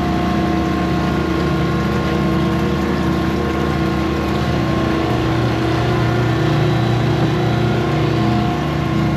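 Pump running steadily: a constant mechanical drone with several steady tones, unchanging throughout.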